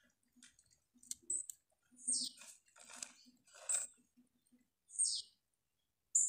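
Flaked corn meal (flocão) poured into an aluminium couscous steamer pot, heard as several short rustling bursts.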